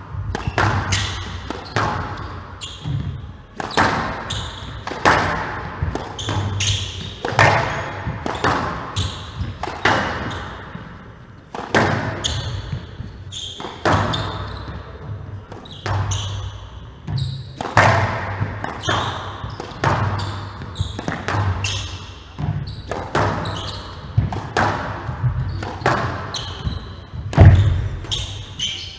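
A squash rally: the ball cracks off rackets and the walls of a glass court, about one sharp hit a second, each ringing on in the hall's echo, with low thuds between them. The loudest hit comes near the end.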